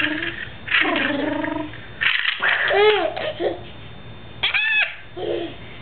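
A baby's voice: a few short, high-pitched squeals and babbling cries, each rising and falling in pitch, with the highest one near the end. A brief noisy burst comes about two seconds in.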